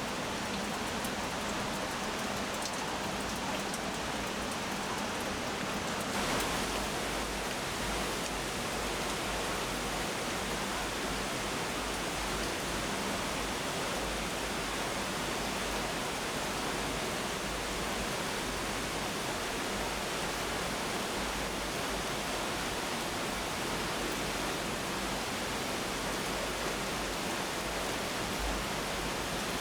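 Waterfall's falling water making a steady, even rushing noise, a little deeper from about six seconds in.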